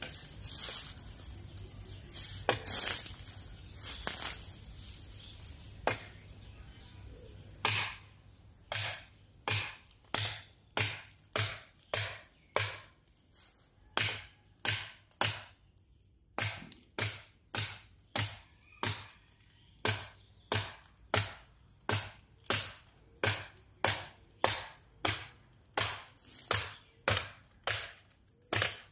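Long SUP9 spring-steel fighting knife chopping a bamboo pole: a few scattered knocks, then from about eight seconds in steady sharp chops, roughly three every two seconds, each with a short ring.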